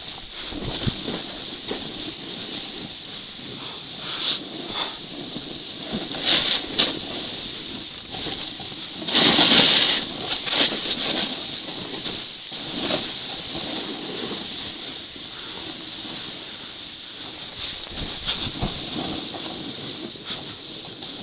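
Snow hissing and scraping under a rider's edges on a fast descent, in uneven surges as the turns bite, with wind on the microphone; the loudest scrape comes about nine seconds in.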